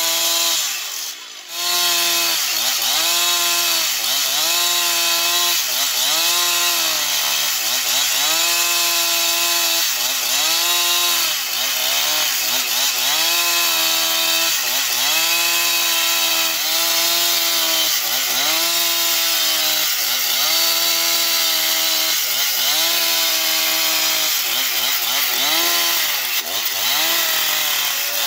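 Husqvarna two-stroke chainsaw ripping lengthwise through a large log under heavy load, its engine pitch sagging and recovering over and over, about every second and a half. The sound breaks off briefly about a second in.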